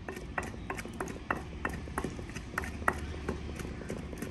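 A pestle pounding a garlic, ginger and green-chilli masala in a kunda mortar, with sharp knocks about three times a second.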